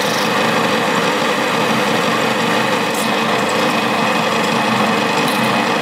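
Linisher (belt sander) running steadily, grinding the edge off an aluminium electrolytic capacitor can.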